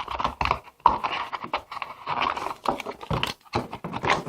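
Cardboard and paper packaging rustling, with knocks and clicks, as it is handled close to the microphone.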